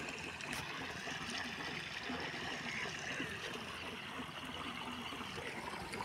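Water flowing steadily down a concrete drain channel, a continuous trickling rush.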